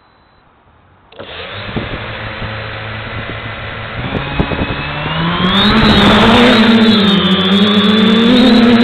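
FPV quadcopter's brushless motors and propellers start suddenly about a second in and idle with a whine, with a few knocks. Around five seconds in they spin up in a rising whine as the quad lifts off, then run loud and steady with a wavering pitch, heard through the onboard camera's microphone.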